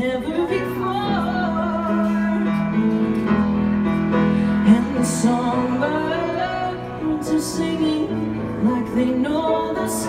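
A woman singing a slow ballad to her own grand piano accompaniment.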